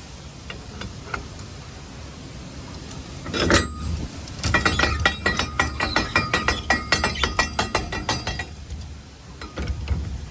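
A sharp metal clank about three and a half seconds in, then about four seconds of rapid, even metallic clicking, around seven clicks a second: a ratchet crank turned by hand to tighten the grain trailer's hopper gate shut.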